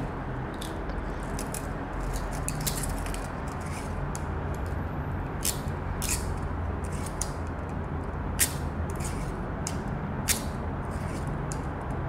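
Light metal toy handcuffs being worked by hand: the toothed cuff arms clicking through the ratchet and metal parts tapping, in irregular clicks with a few sharper ones in the second half.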